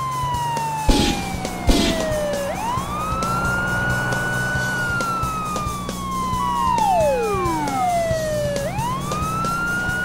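Cartoon police siren wailing slowly. Its tone sweeps up quickly twice, holds high, then slides slowly down. Two sharp knocks come about a second in, a falling whistle-like glide comes past the middle, and a steady low hum runs underneath.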